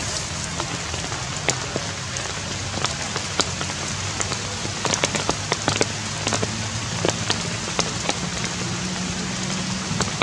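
Rain pattering on wet leaves and the forest floor: a steady hiss of falling water with many sharp, irregular drop hits.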